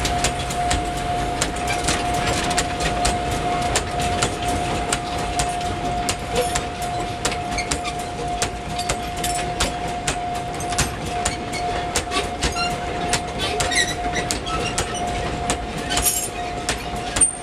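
Loaded sugarcane wagons of a narrow-gauge sugar-railway cane train rolling slowly past, their wheels clicking over the rail joints. A steady high tone is held unbroken underneath.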